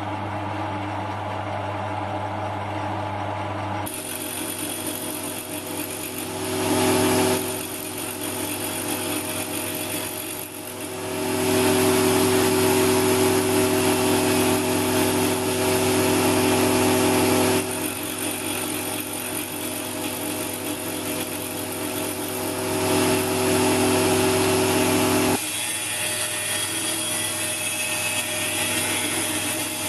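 Belt-driven grinder spindle powered by a 775 DC hobby motor, spinning a thin abrasive cutting disc into a bolt's steel thread. The steady motor hum is joined about four seconds in by a harsh grinding hiss that swells louder for several seconds at a time and eases back a few seconds before the end.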